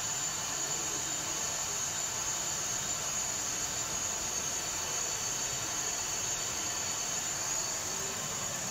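Airliner jet engine sound effect played for a model airliner on a miniature airport runway: a steady rushing hiss with a high whine.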